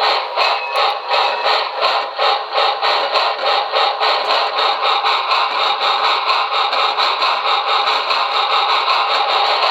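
Synthesized small steam locomotive chuffing from a QSI Maxx Traxx model-train sound system, played through a small speaker on a resonator tube, so it sounds thin with no bass. The chuffs come in a quick, even rhythm that picks up a little speed.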